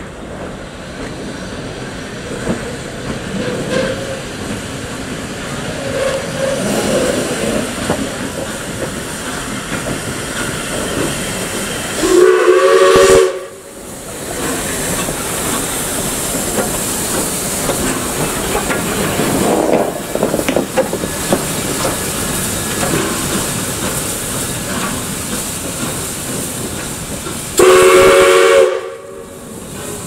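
South Australian Railways 620-class steam locomotive No. 621 moving slowly, hissing steam from its open cylinder drain cocks. It sounds its steam whistle twice, about twelve seconds in and again near the end, each blast just over a second long and the loudest sound here.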